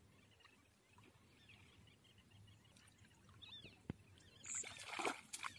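A hooked fish splashing and thrashing in the shallows at the bank as it is pulled out on the line: one short burst of splashing about a second before the end, with a sharp click just before it.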